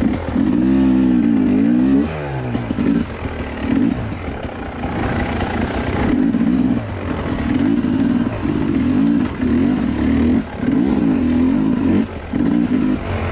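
Dirt bike engine revving hard in repeated bursts, its pitch climbing and falling again and again, with short dips between bursts.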